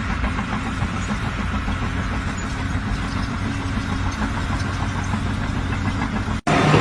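An engine running steadily with a low hum, cutting off suddenly near the end.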